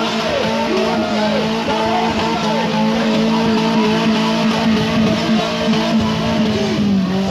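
Off-road vehicle engine running hard, its pitch swooping up and down over a held note, with music playing over it.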